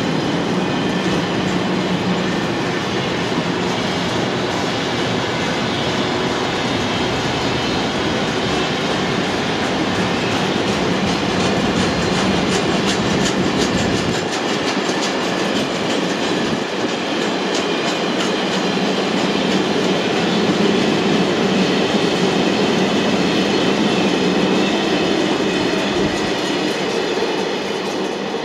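Freight wagons rolling past at speed: a steady rush and rumble of steel wheels on rail, with a clickety-clack of wheels over rail joints. The deep rumble thins about halfway through as the loaded car-transporter wagons go by, and the sound eases slightly near the end.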